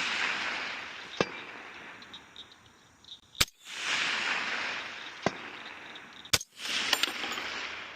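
Two shots from a suppressed rifle, a Pamax PMT-15 with a Griffin suppressor, about three seconds apart, each followed by a long rolling echo that dies away. A faint sharp knock comes about two seconds after each shot.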